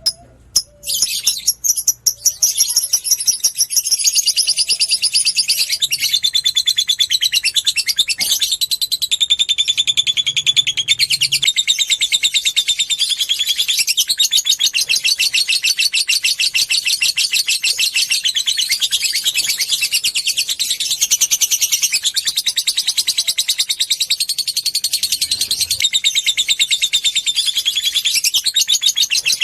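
Lovebird giving a long, unbroken chattering trill (the 'ngekek panjang' song): fast, high-pitched notes repeated many times a second. A few separate chirps come in the first couple of seconds before the trill settles in.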